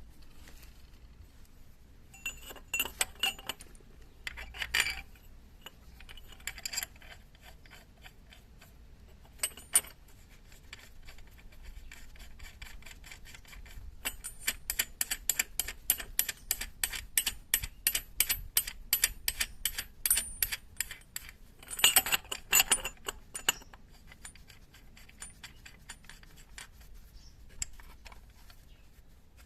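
Metal hand tools and small metal parts clinking and tapping during scooter gearbox work. A few short clusters of taps, then a long run of rapid, even clicks lasting several seconds.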